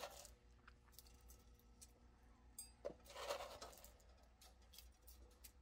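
Near silence: faint room tone with a steady low hum, one soft click and a brief soft rustle about three seconds in.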